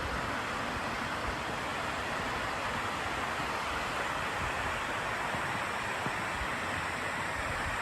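Steady rushing of a cascade waterfall, an even hiss of falling water with no breaks.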